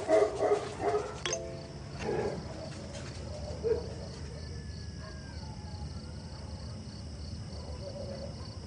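Dogs barking and yelping a few times in the first few seconds, then a quieter stretch with a faint steady high-pitched hum.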